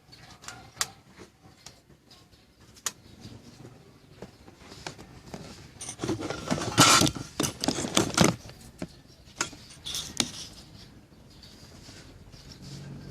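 Small hard objects being handled: scattered clicks and taps, with a burst of clattering from about six to eight and a half seconds in.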